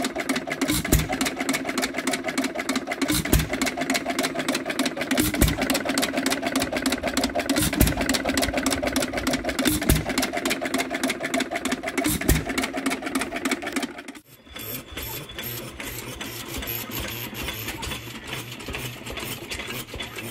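1930s air-cooled Bamford hit-and-miss stationary engine running, with a fast, even mechanical clatter and a heavier thump about every two seconds as it fires. About fourteen seconds in, the sound cuts to a quieter, steady low hum.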